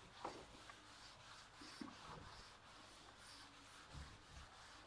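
Faint rubbing of a duster wiping a whiteboard, in repeated strokes, with a few light knocks.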